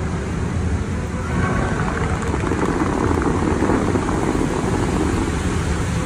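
Steady rushing of the fountain's water jets and falling spray, over a deep low rumble; the rush swells about a third of the way in and eases again.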